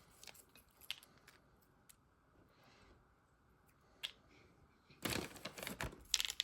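Light, crisp clicks and crackles of dry fried grated potato being sprinkled onto a dish. A few scattered ticks at first, then a denser burst of crinkling from about five seconds in.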